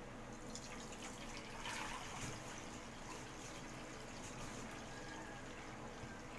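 Coconut milk poured from a metal tray through a wire-mesh strainer into a bowl: splashing and trickling, strongest about two seconds in, then dripping through the mesh.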